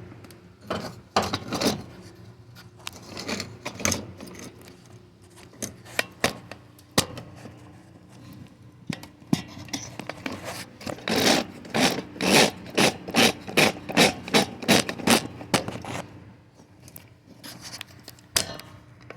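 Rubbing, scraping and knocking as the recording phone is handled and fitted into a cup-holder phone mount. In the middle there is a run of quick rubbing strokes, about two a second, followed by a couple of clicks.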